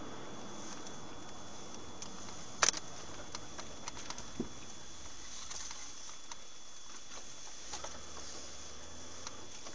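Cabin noise of a moving car picked up by a dashcam: a steady hiss with a faint high whine, scattered small clicks and rattles, and one sharper knock a little under three seconds in.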